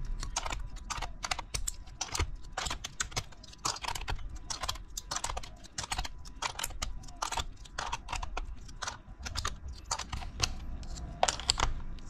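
Plastic keycaps being pulled off a Corsair K95 RGB Platinum mechanical keyboard with a keycap puller: a run of irregular sharp plastic clicks and clacks, about three or four a second, as the caps pop off their switches.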